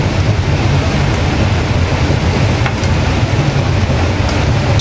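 Thickened sweet-and-sour sauce simmering and bubbling in a pan as it is stirred, a steady hiss over a low hum.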